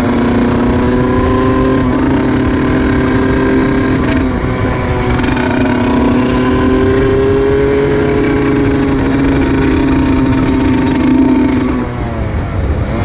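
125 cc two-stroke dirt bike engine held at steady high revs under way, its pitch easing up slightly midway; near the end the revs drop briefly and then climb again, as at a throttle lift or gear change.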